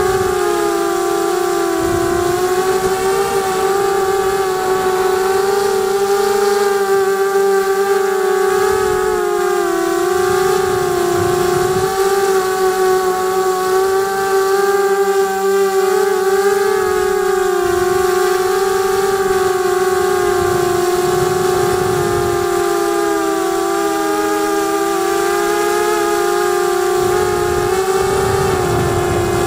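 QAV250 racing quadcopter's brushless motors and propellers whining steadily, heard from the camera on board the craft. The pitch wavers gently up and down throughout.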